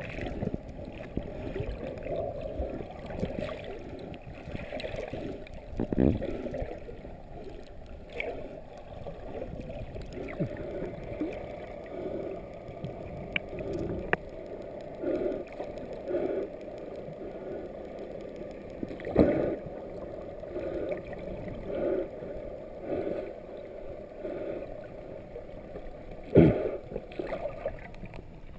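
Muffled underwater sound picked up by a camera below the surface: water sloshing and gurgling in soft swells, with a few dull thumps, the loudest near the end.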